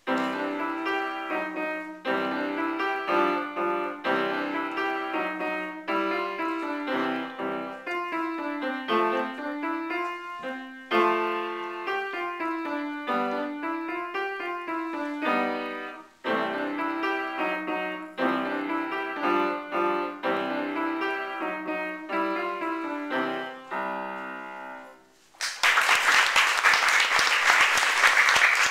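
Upright piano playing a short piece, with a brief break about two-thirds of the way through, ending about 25 seconds in. Applause follows.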